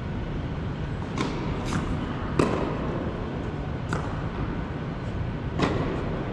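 Tennis ball impacts: five sharp pops of ball on racket and court, the loudest about two and a half seconds in, ringing in a large indoor court hall, over a steady low hum.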